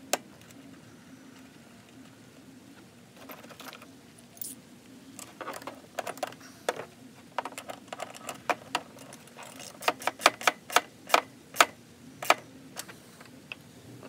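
Small metal parts clinking and rattling as they are handled: irregular sharp clicks, one near the start, then coming thicker and louder about two-thirds of the way in.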